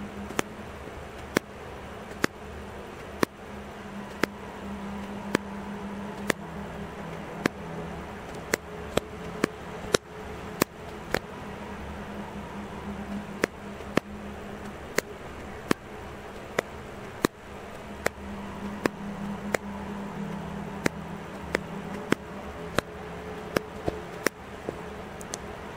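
A camera's shutter-speed and ISO dial wheels being turned, giving sharp single detent clicks about once a second at an uneven pace. Each click is one step of the exposure setting. A steady low hum runs underneath.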